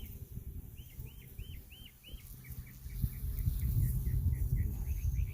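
A songbird repeats a short arched chirp about three or four times a second. From about three seconds in, a low buzz of honeybees swarming near the open hive swells and becomes the loudest sound.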